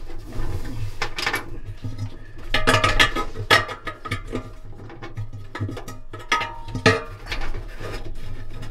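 Metal clanks, taps and scrapes from a hand working at the main-bearing hub at the centre of a Fisher & Paykel dryer's stainless steel drum. The clanks are irregular, with the sharpest ones about a second in, around three seconds in, and near seven seconds in.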